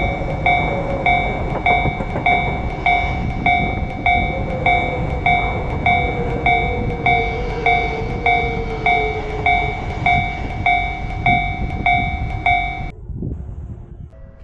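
Japanese railroad crossing warning bell ringing, a chiming tone repeating about twice a second, over the rumble of a passing train. Underneath it a whine from the train slowly falls in pitch. Both cut off suddenly shortly before the end.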